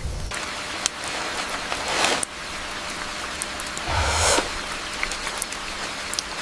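Steady rain falling on rainforest foliage, with scattered drips and two brief swishes about two and four seconds in.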